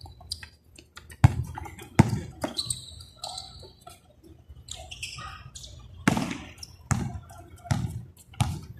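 A basketball bouncing on a court floor during play: a string of sharp thuds at uneven intervals, clustered early and late with a lull in the middle.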